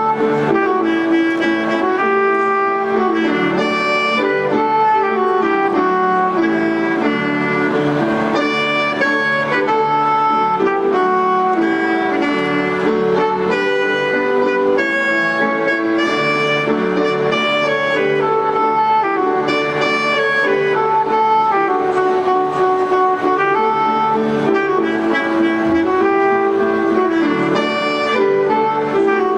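Alto saxophone playing a melody in steady phrases of held notes, over a backing accompaniment of sustained lower chords.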